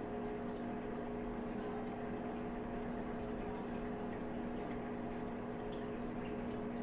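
Aquarium filter pump running with a steady hum over the constant sound of moving water.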